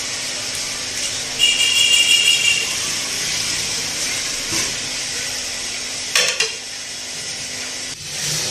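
Metal potato masher pressing and scraping through boiled potatoes in a glass bowl, with clinks of the metal against the glass. The loudest part is a ringing squeak of the masher on the glass from about one and a half to two and a half seconds in; there is a single knock about six seconds in, over a steady background hiss.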